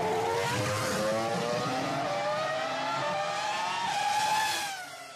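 Formula 1 race car engine sound effect at full throttle, its pitch climbing steadily as it accelerates, fading away near the end.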